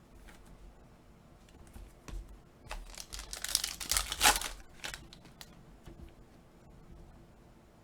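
A foil trading-card pack wrapper being crinkled and torn open, a loud crackling burst of under two seconds about three seconds in, with light handling rustles and clicks around it.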